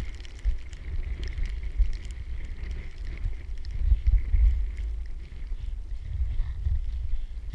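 Wind buffeting the microphone: an uneven low rumble that swells and drops, with faint scattered clicks above it.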